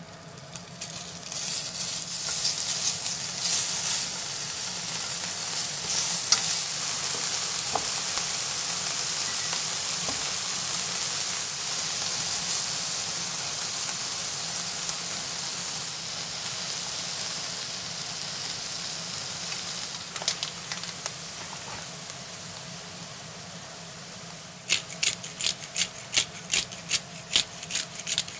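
Diced chicken breast and garlic sizzling in oil and butter in a non-stick frying pan, a steady frying hiss. Near the end the sizzle drops and a utensil clicks against the pan about three times a second as the chicken, onion, carrot and mushroom are stir-fried.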